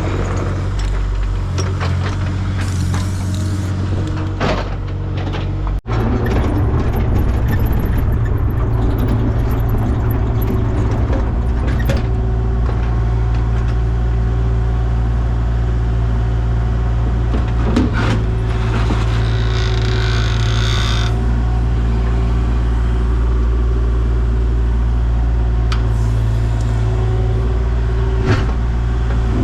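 A heavy vehicle engine running steadily with a low drone, broken off suddenly about six seconds in and then running on, with a short hiss about two-thirds of the way through.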